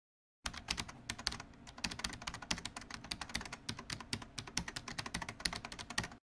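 Keyboard typing sound effect: a rapid, irregular run of small clicks that starts about half a second in and stops just before the end.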